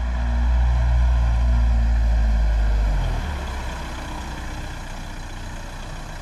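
Volkswagen taxi's engine running as the car drives up and pulls to a stop. A strong low hum lasts about three seconds, then drops to a quieter steady idle.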